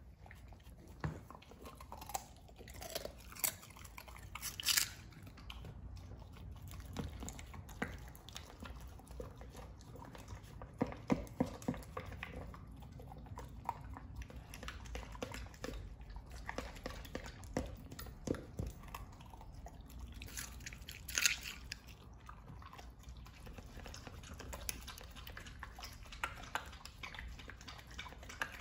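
Welsh corgi chewing and crunching pieces of vegetables such as carrot and apple from a plastic slow-feeder bowl. Irregular bites and crunches, with a few louder ones about five, eleven and twenty-one seconds in.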